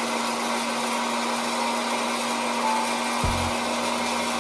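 Electric popcorn machine running just after being switched on: a steady whir from its fan motor with a constant hum underneath. A short low bump comes about three seconds in.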